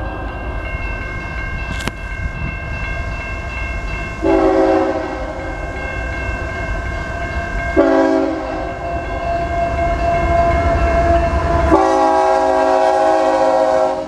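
Air horn of an approaching Canadian National freight train's lead locomotive, a GE C44-9W, blowing the grade-crossing signal. The blasts run almost without a break, a fresh one starting about every four seconds, and the horn cuts off near the end. A low diesel rumble runs underneath.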